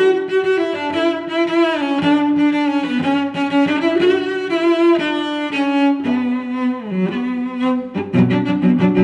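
Background music: a slow melody on bowed strings in a cello-like register, with a deeper, fuller part joining about eight seconds in.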